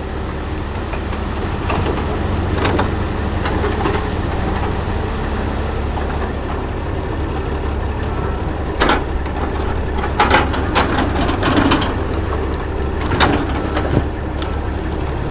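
Log loader's diesel engine running steadily while logs are loaded onto a log truck, with several sharp knocks of wood on wood between about nine and fourteen seconds in.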